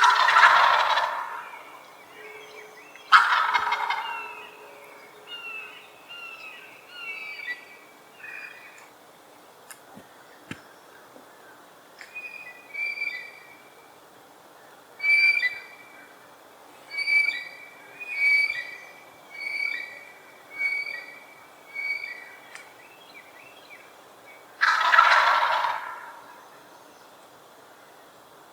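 Male turkey gobbling: three loud rattling gobbles, one right at the start, one about three seconds in and one near the end. In between comes a run of short, higher call notes, repeating about once a second.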